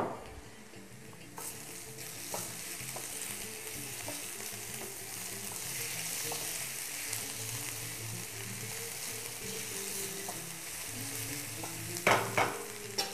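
Chopped onions sizzling gently in a frying pan over low heat, stirred with a wooden spatula so they soften slowly without browning. A few sharp knocks of the spatula against the pan come near the end.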